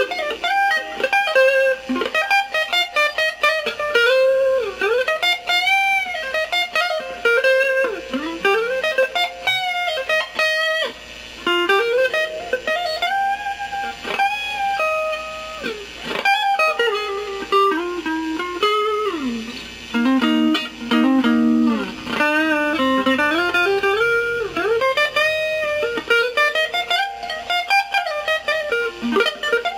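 Clean-toned electric guitar lead from a SQOE Ranger Strat-style guitar, played through a Kokko Mini Compressor pedal: single-note phrases with frequent string bends and slides, separated by short pauses.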